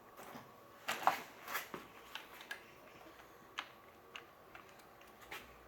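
Light, irregular clicks and taps of small metal and plastic parts and a hand tool being handled during disassembly of an air-cocking rifle, the sharpest about a second in.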